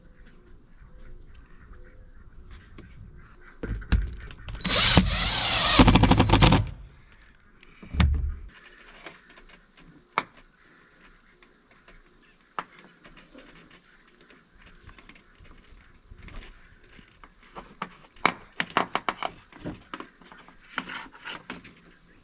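A cordless drill runs in one short burst about five seconds in, its pitch wavering up and down, followed by a low thump. The rest is quiet handling with scattered clicks and a run of taps and knocks near the end as the conduit is fitted through the roof.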